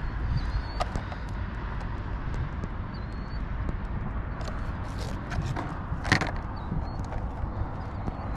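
Wind rumbling on the microphone over open water, with scattered light clicks and one sharper knock about six seconds in from handling a bass and a digital fish scale aboard a kayak.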